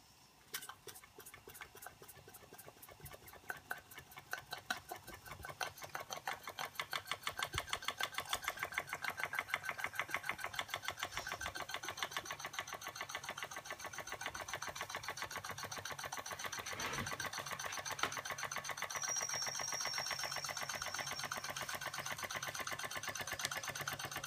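Toy vertical steam engine starting up after its flywheel is turned by hand: slow chuffs at first that speed up and grow louder into a fast, steady chuffing rhythm. A thin high steady tone comes in briefly a little past the middle.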